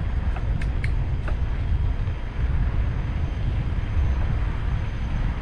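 Steady low rumble of wind buffeting the microphone, with a few faint ticks in the first second.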